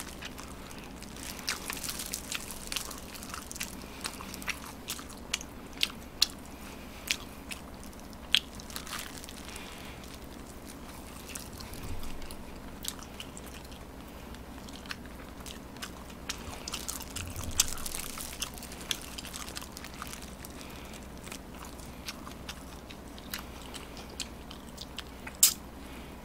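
A person eating fried chicken: crisp crunching bites and chewing, with irregular sharp crackles scattered throughout.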